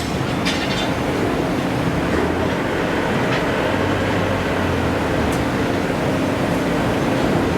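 Steady loud rumble of heavy forge-shop machinery, with a constant low hum and a few faint sharp clinks. No distinct hammer blows stand out.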